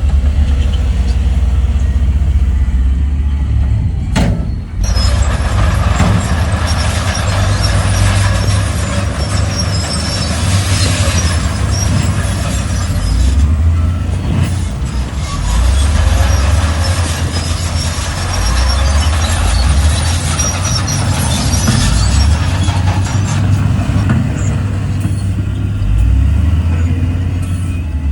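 Heavy diesel earthmoving machinery running with a steady low rumble. From about five seconds in, a loud rushing hiss lies over it and eases off near the end.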